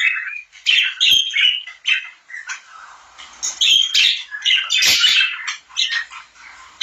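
Pet birds chirping in a busy run of short, choppy calls, with a couple of brief knocks mixed in.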